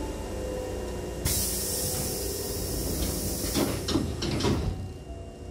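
Air-operated sliding doors of a Hankyu 6000-series train closing. A sudden loud hiss of air starts about a second in and runs for about three seconds. Several knocks come near its end as the door leaves slide shut and meet, then the hiss stops.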